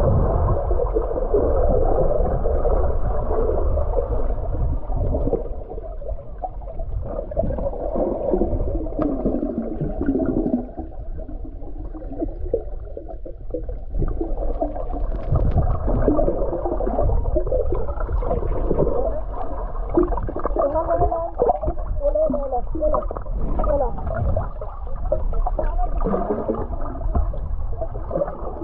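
Muffled underwater sound from a camera held beneath the water: a steady low rumble of moving water with gurgling and bubbling. All the sharper sound is cut off, leaving only a dull, wavering noise.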